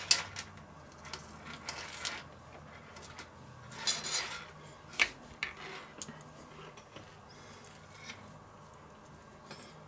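Light, scattered clicks and taps of a thin metal grill skewer and food pieces handled on a wooden cutting board as onion, tomato and meat are threaded onto the flexible skewer, with a brief rustle around four seconds in and the sharpest click about a second later.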